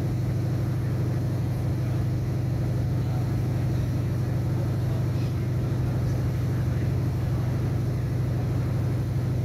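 Steady low hum and rumble inside the passenger cabin of a 3100 class hybrid diesel railcar travelling between stations.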